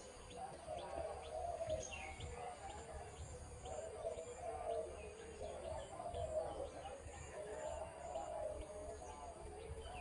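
A dove cooing repeatedly in low, rolling phrases, with small birds chirping now and then.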